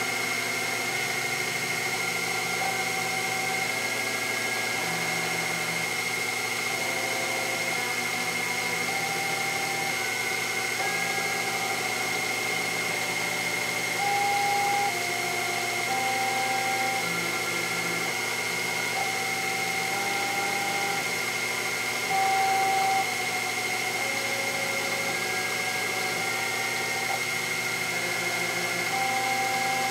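Sherline CNC mill running steadily as an end mill cuts a Delrin bar on the rotary fourth-axis table, with a constant high whine throughout. The axis stepper motors add short steady tones that jump to a new pitch every second or so as the feeds change. It turns briefly louder twice, about 14 and 22 seconds in.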